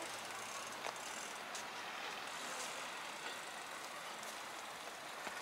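Outdoor city ambience: a steady wash of road traffic, with a few faint light clicks.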